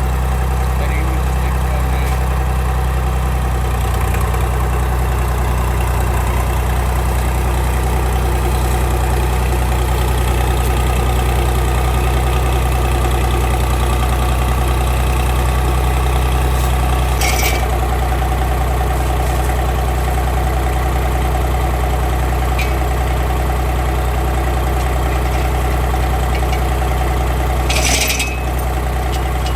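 An engine idling steadily at an even speed, with two brief clinks about two-thirds of the way through and near the end.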